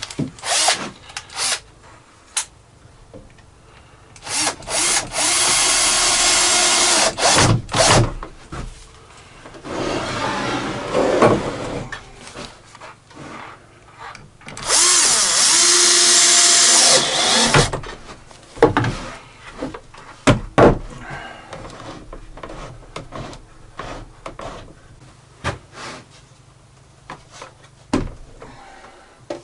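Cordless drill-driver driving screws into wood: two long runs of a few seconds each, with a shorter, softer run between them, and scattered knocks and clicks of handling around them.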